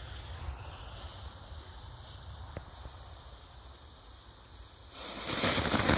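Wind rumbling on the microphone, then about five seconds in a small 'Distraction Flare' youth firework catches and starts hissing, quickly getting louder.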